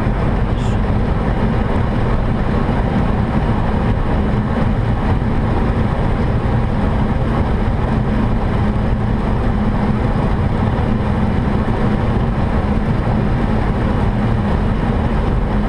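Steady flight-deck noise of a Boeing 737 in flight on approach: a constant rush of airflow with a low engine drone, unchanging throughout.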